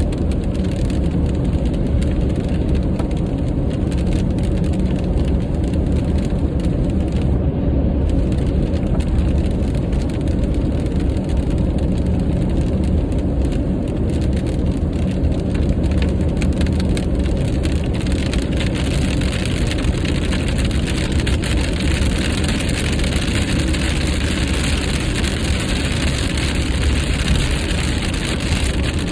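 Steady low road and engine rumble of a car at highway speed, with raindrops ticking on the windshield. About two-thirds of the way in, a louder hiss of rain and tyre spray builds up.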